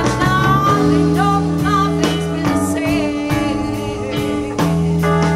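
Live band music: a woman singing into a microphone over electric bass guitar, sustained organ chords and a steady beat.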